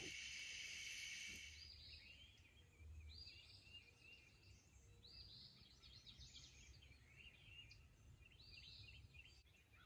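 Faint outdoor chorus: a steady, high-pitched night insect trill that cuts off about a second and a half in. Then dawn birdsong follows, with short falling chirps repeated every second or two over quieter warbling.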